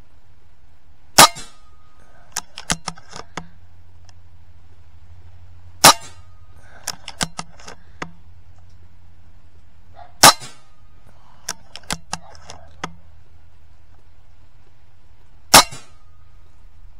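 Four shots from an Evanix Rainstorm PCP air rifle fitted with a Huma regulator, one every four to five seconds. Each sharp crack is followed by a brief beep and then a few lighter clicks.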